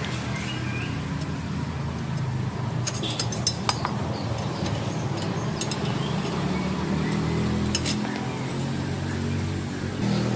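Metal clinks of a hand wrench on the exhaust nuts under a Honda PCX 150 scooter as the nuts are unscrewed and come free. There is a cluster of clinks about three seconds in and a few more later, over a steady low hum.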